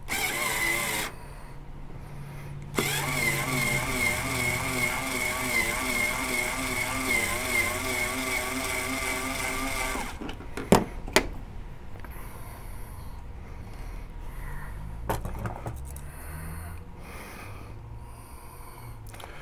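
Cordless drill driver spinning an RCBS three-way cutter in a Hornady case trimmer, trimming, chamfering and deburring a brass rifle case to length. A brief spin comes first, then a steady run of about seven seconds whose pitch wavers as the cutter bites, stopping about ten seconds in. Two sharp clicks follow.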